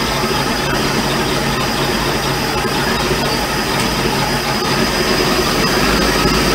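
An engine idling steadily, a continuous low drone with a thin steady high whine over it.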